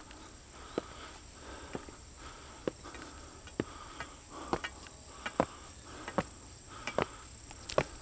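Footsteps on concrete stairs, one step a little under every second, each a short sharp scuff or tap. Under them, insects keep up a steady chirring.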